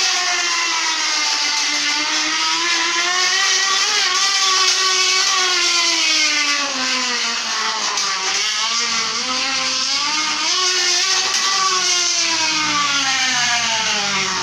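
A plastic card pressed against a spinning bicycle tyre, buzzing like a race car engine. Its pitch rises and falls with pedalling speed, dipping about eight seconds in, climbing again and falling near the end.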